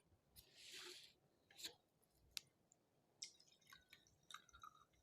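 Near silence, with a brief soft hiss about a second in and a few faint clicks and small ticks.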